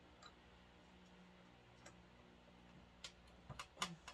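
Faint scattered clicks, then a quick cluster of several sharper ones near the end, as a screwdriver works the last screw into a cup turner's housing. A faint steady low hum sits underneath.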